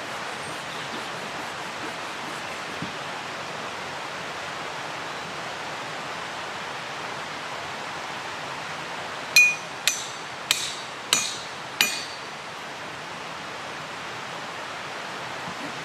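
Five sharp, ringing metallic clinks about two-thirds of a second apart, the first the loudest, over a steady rushing hiss.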